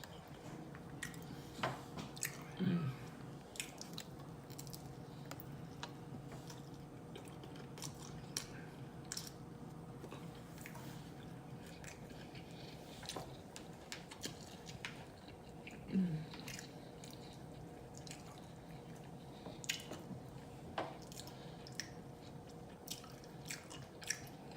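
Close-miked mukbang eating: open-mouthed chewing and wet lip smacks, with scattered sharp clicks throughout. A short low hum from the eater comes twice, about three seconds in and again past the middle, over a faint steady background hum.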